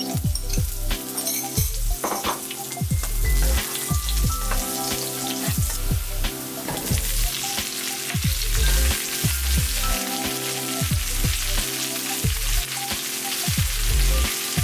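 Chopped garlic, then chunks of zucchini, sizzling and spitting in hot oil in a frying pan over high heat as they are stir-fried. The sizzle grows stronger a couple of seconds in. A calm background music track with a repeating bass line plays under it.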